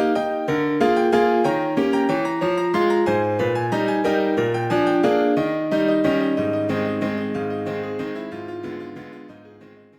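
Alcatel OT 835 ringtone melody played back as a MIDI tune in a piano-like keyboard sound over a bass line, fading out over the last few seconds until it stops.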